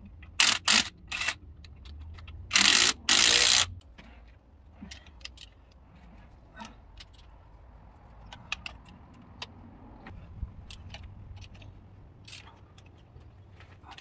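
Metal parts and tools being handled during engine work. A few short loud scraping or hissing bursts come in the first few seconds, the longest lasting about a second, then scattered faint metallic clicks and clinks.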